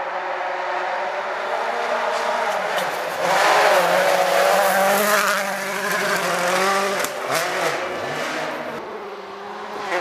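Rally car engine revving hard as the car approaches, loudest around three to five seconds in. There is a sharp crack about seven seconds in, then the engine note dips and falls.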